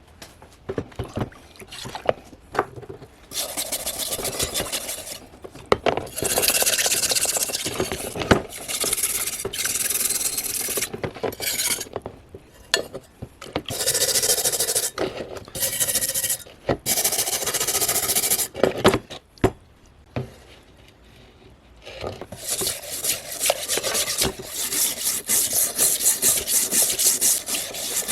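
Rusty steel cleaver being scoured by hand with an abrasive, rubbed back and forth in runs of quick scraping strokes with short pauses between them.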